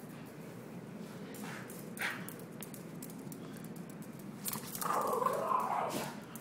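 A dog playing hyperactively on a hard floor, with scattered sharp clicks and scuffles. It gives a brief, wavering vocal sound for about a second, starting around five seconds in.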